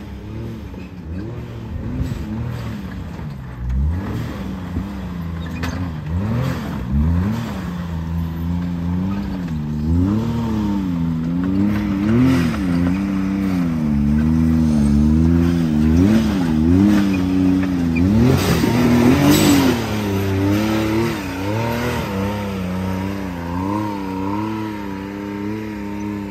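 Can-Am Maverick X3 side-by-side's turbocharged three-cylinder engine revving up and down over and over as the machine crawls up a rock ledge, the throttle worked in short pulses. About three quarters through, a louder, rougher burst.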